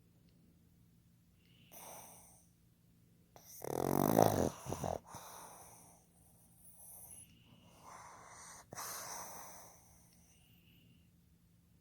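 A pug snoring in its sleep: one loud snore about four seconds in, then several fainter, snuffling breaths. This heavy snoring is typical of the breed's short, narrow airway.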